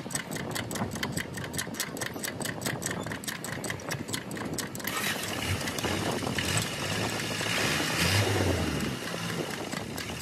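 Fiat 480 Special tractor's diesel engine running with a regular ticking. About five seconds in the sound changes as the engine revs up, builds for a few seconds, then drops back near the end.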